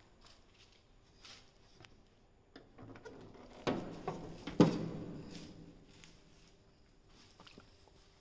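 Car bonnet being opened and propped: a clunk about three and a half seconds in, then a louder metallic clunk a second later that rings and fades away.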